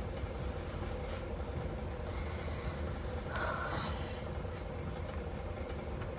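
Steady low hum of a running room heater.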